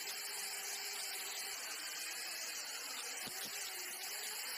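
Electric drill motor running steadily with a constant whine, turning the spindle of a homemade lathe drilling attachment while its twist drill bores into a metal workpiece.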